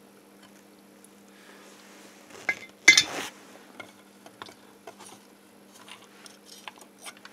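Small clicks and knocks of hands handling wires and parts inside a 3D-printed plastic lamp base. A sharp clink about three seconds in comes as the soldering iron is set down. A faint steady hum runs underneath.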